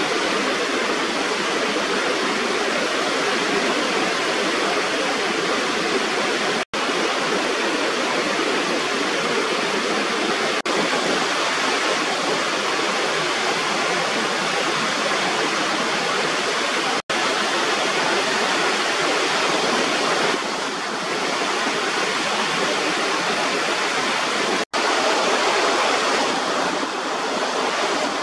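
Small waterfall spilling over a rubber irrigation weir: steady rushing water. The sound cuts out for an instant three times.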